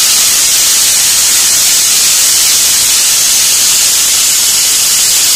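Prestige Popular aluminium pressure cooker whistling: a loud, steady hiss of steam venting from under the weight valve. It is the sign that the cooker has come up to pressure, one of the whistles counted to time the cooking.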